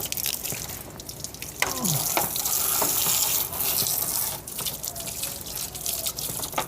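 Running water splashing over a window air conditioner's front grille as it is washed, louder for a few seconds from about two seconds in, with scattered light knocks and clicks.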